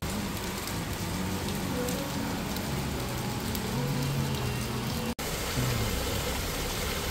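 Steady rain falling on a wet city street, with the low hum of traffic underneath. The sound drops out for an instant a little after five seconds.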